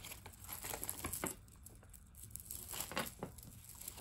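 A few faint clicks and rustles of costume jewelry being handled, with the loudest clicks about a second in and near three seconds in.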